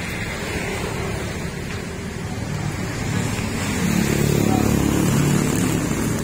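Road traffic running past, a low steady rumble that swells about four seconds in as a vehicle comes close.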